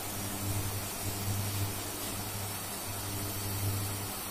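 Onion, tomato and spice mixture sizzling in oil in a frying pan, a steady hiss, over a low hum that swells and fades.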